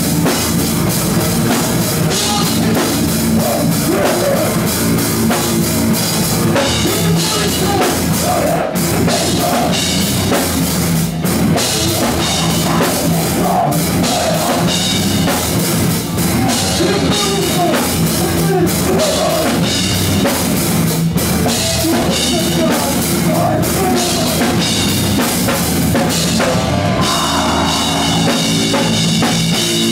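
Live rock band playing loud, with the drum kit prominent.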